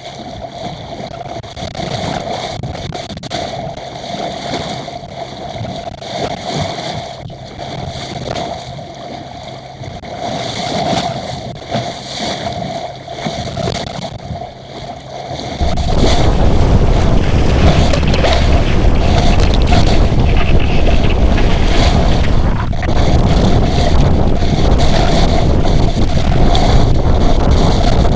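A small sailboat under way in strong wind, with water rushing and gurgling along the hull and wind. About halfway through, loud wind buffeting on the microphone suddenly takes over.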